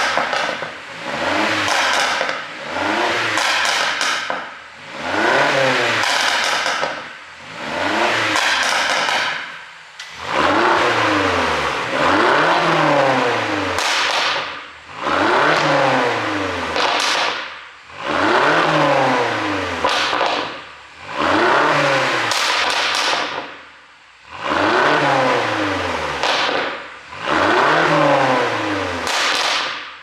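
2017 BMW X6 M's twin-turbo V8 revved repeatedly while stationary, about a dozen blips roughly every two seconds, each climbing and falling back in pitch. Exhaust pops and crackles sound as the revs drop, from an ECU pop-and-crackle tune.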